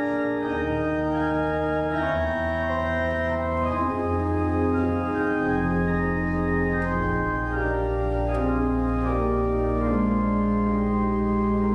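Organ playing slow, held chords over low bass notes that change every few seconds.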